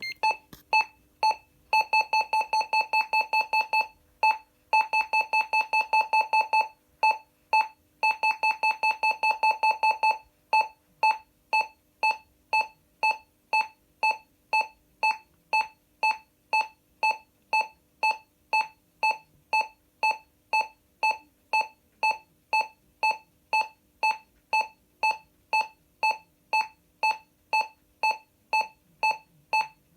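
ADE Karizma Plus alarm panel's buzzer beeping at one steady pitch. It gives a few single beeps, then three bursts of rapid beeping of about two seconds each, then single beeps about twice a second.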